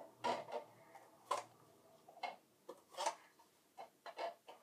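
Light taps of disposable plastic cups being set down one at a time on a desk and on top of each other as a pyramid is stacked, roughly one tap a second, coming closer together near the end.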